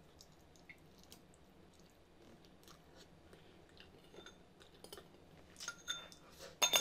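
Close-up chewing and mouth sounds while eating a boiled egg, with small clicks of metal cutlery against a ceramic bowl. From about five and a half seconds in the cutlery clinks against the bowl with a ringing tone, ending in a louder clatter.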